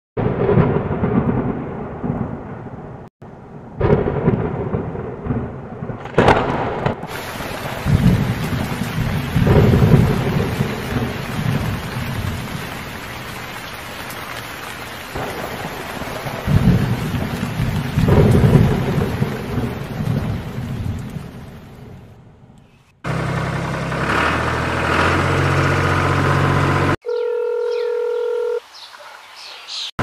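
Thunderstorm: rolling thunder, then a sharp crack about six seconds in, after which steady heavy rain hisses under repeated rumbles. The storm fades out after about 22 seconds, and a different steady humming sound with held tones takes over for the last several seconds.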